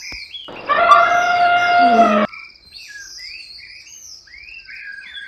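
An elephant trumpeting once: a loud held call of about two seconds that starts about half a second in and cuts off sharply. Birds chirp in the background.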